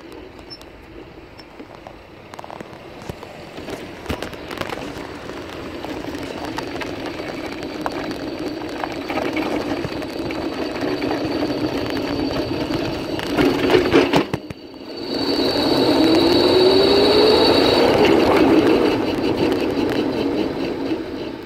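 Electric go-kart rolling on asphalt: motor, drivetrain and tyre noise builds as it gathers speed. About two-thirds of the way through a rising motor whine comes in with the loudest stretch, then fades near the end.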